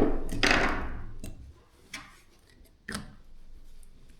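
A sharp click and a brief fading rattle, then a few separate clicks about a second apart: small metal tool and drill parts being handled while the chuck's left-hand-thread retaining screw is tightened on a DeWalt cordless drill.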